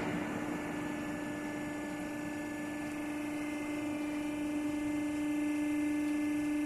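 Hydraulic power unit of an industrial gas deep fryer running with a steady hum, one low tone with overtones, as it tilts the fryer's hood and basket up to discharge.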